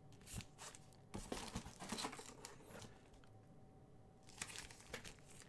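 Faint crinkling and rustling of plastic-bagged comic books being handled and slid against each other in a cardboard short box, in scattered soft bursts with small clicks.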